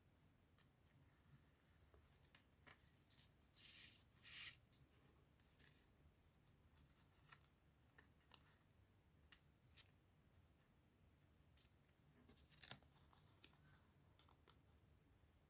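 Faint, scattered rustling and soft ticks of paper and packaging being handled, over near silence, with a slightly louder crinkle about four seconds in and a sharp tick near the end.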